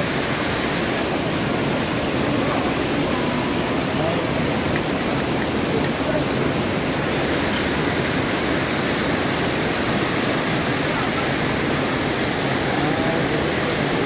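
Steady rush of a fast mountain stream in spate, white water pouring over and around boulders, with faint voices in the background.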